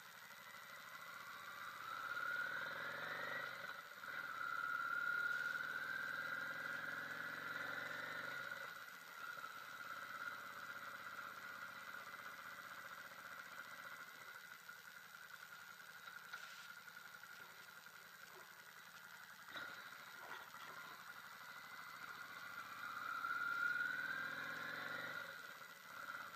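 Yamaha V Star 650's V-twin engine pulling away and accelerating, its pitch rising twice in the first eight seconds with a gear change between. It then runs steadier and quieter at cruising speed, and climbs again near the end.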